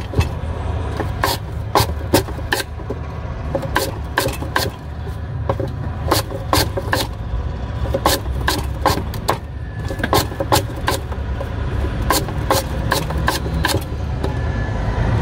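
Sugarcane stalk being chopped with a hinged lever blade, a string of sharp chopping knocks about two a second, irregularly spaced, over a steady low rumble.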